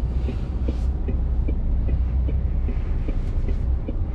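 Articulated lorry's diesel engine running low and steady, heard from inside the cab, with a light tick repeating about two and a half times a second.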